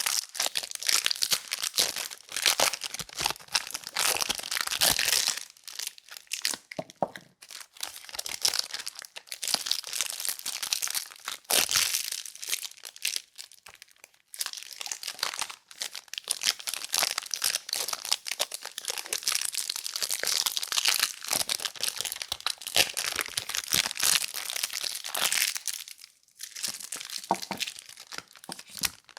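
Soap packaging being handled and unwrapped: wrappers crinkling and crackling with some tearing, in bursts broken by short pauses.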